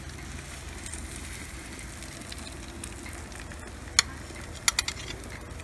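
Kokanee fillets sizzling on tin foil on a gas grill. A metal spatula clicks sharply about four seconds in, then several quick clicks follow as it lifts fish off the foil onto a plate.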